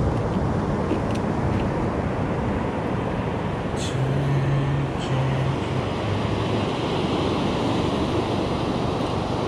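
Steady roar of ocean surf breaking on the beach, with wind buffeting the microphone. A few light plastic clicks near the start as the tackle box is closed and latched.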